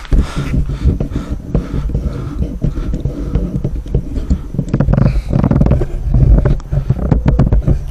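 Road-works machinery running: a steady low engine rumble with sharp knocks and scrapes through it, busiest in the second half.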